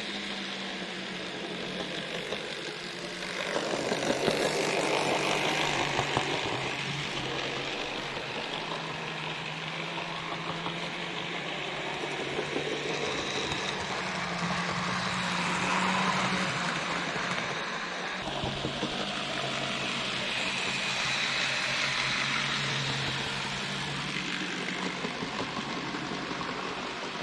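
N gauge model trains running on the layout: a steady electric-motor hum with wheel-on-rail rumble that swells and fades as trains pass close by, loudest about four seconds in and again around sixteen and twenty-two seconds.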